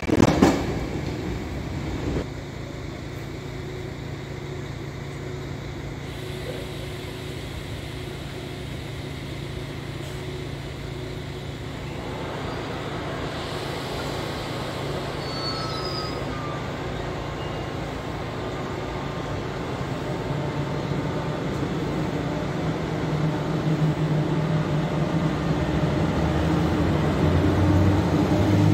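Electric locomotive of the NS 1700 class humming with several steady tones, growing louder as it moves slowly past near the end. At the very start the last coaches of a passing passenger train rattle away.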